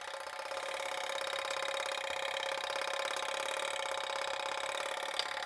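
A Simplex coded fire alarm pull station's code mechanism running after being pulled: the gear train turns the code wheel with a fast, even whirr of ticks.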